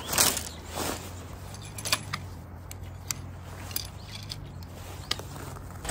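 Tent fabric rustling in two quick swishes, then a metal tent pole clicking and clinking a few times as its end section is worked loose and pulled apart at the joint.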